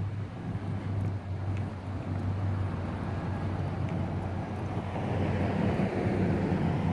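Motor vehicle running nearby with engine hum and road noise, growing gradually louder over the last few seconds.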